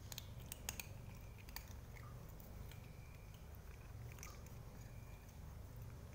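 A cat chewing dry kibble taken from a hand, with faint crunching, and a few sharp clicks in the first second or so.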